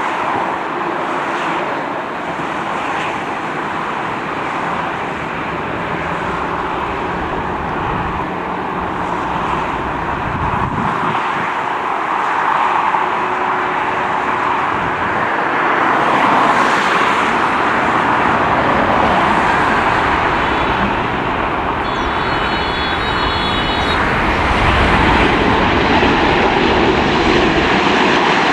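Wide-body jet airliner's engines, a steady rushing roar that grows gradually louder as the aircraft comes closer.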